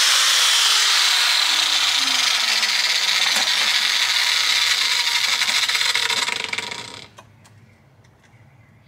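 Angle grinder with a cutoff wheel notching a small steel part: a steady, loud grinding hiss that fades out about seven seconds in, followed by a few light metal clicks as the part is handled.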